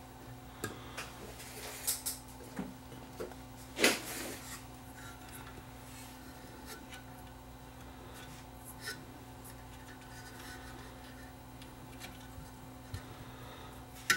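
Small scattered clicks, taps and rubbing from wire and capacitor leads being handled and bent against the sheet-metal chassis of a tube radio under repair, thickest in the first few seconds with the loudest knock about four seconds in. A steady low hum runs underneath.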